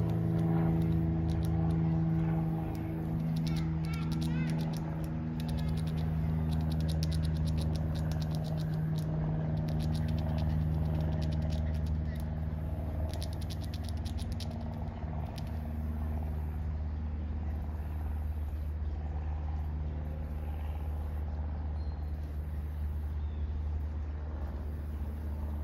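Squirrel gnawing the hard shell of a black walnut with its teeth: rapid runs of fine scraping clicks that come in several bursts through the first half. These sit over a steady low rumble of road traffic, which is the loudest sound.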